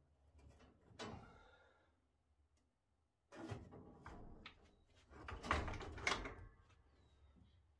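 Faint metal clunks and scraping as a manual transmission is shifted and worked into place during reinstallation: a knock about a second in, then two longer stretches of scraping and knocking in the middle.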